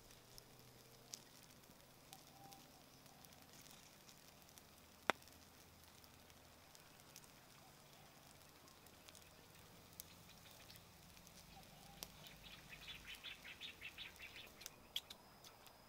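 Wood-ember cooking fire crackling faintly under grilling prawns, with scattered small pops, one sharp pop about five seconds in, and a quick run of ticking near the end.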